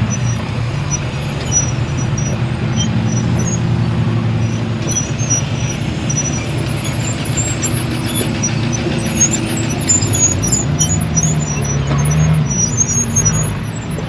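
Rock-crawling off-road vehicle's engine running at low revs, picking up revs briefly about ten and a half seconds in. Faint high squeaks come and go over it.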